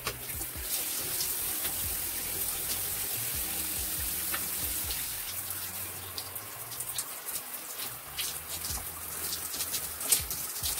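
Shower spray running and spattering on wet hair and skin, with many scattered drips and splashes.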